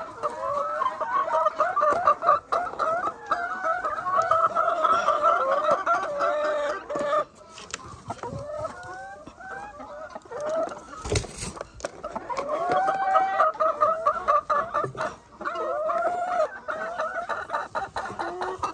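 Hens calling loudly in long, wavering runs of clucks: a first stretch lasting about seven seconds, then a quieter gap with a single knock, then more calling from about twelve seconds on.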